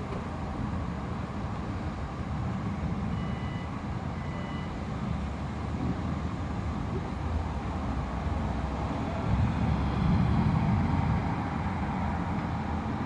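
Low, continuous rumble of distant rolling thunder over city background noise, swelling about nine to eleven seconds in. Two faint short beeps sound around three and four seconds in.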